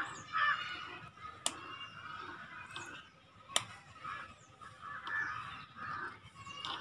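A small metal spoon clinks sharply twice against miniature cookware as semolina is stirred into boiling water. Fowl honk repeatedly throughout, with a faint high bird chirp near the start.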